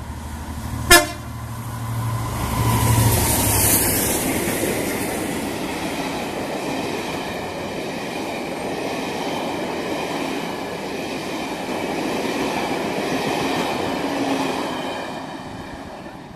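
Class 67 diesel locomotive passing at speed with a very short horn toot about a second in. Its engine is heard in the first few seconds, then the rumble and clatter of the coaches going by, fading near the end.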